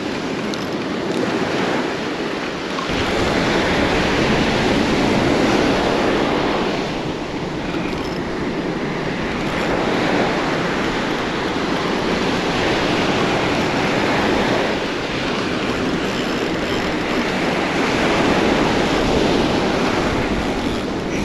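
Surf breaking on a beach, the wash swelling and ebbing with each wave, with wind buffeting the microphone from about three seconds in.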